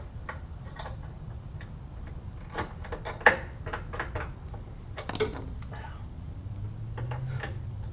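Scattered metallic clinks and knocks of tools and steel parts as a repaired steering bracket is fitted back onto a truck, the sharpest knock about three seconds in, over a steady low hum.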